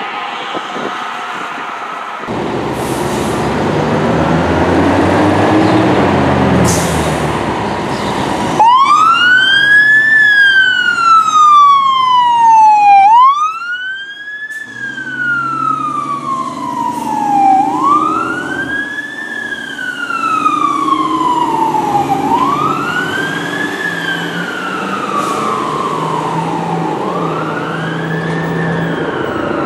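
Fire truck diesel engine running with two short hisses, then the truck's siren wailing up and down about five times, each cycle rising quickly and falling slowly, loudest in the first cycles.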